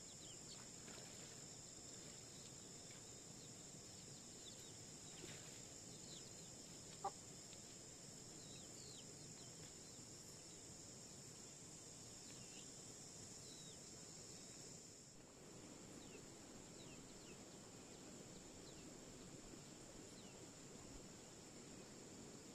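Faint outdoor ambience: a steady high insect drone, with scattered short chirps and one brief, louder call, likely from chickens, about seven seconds in.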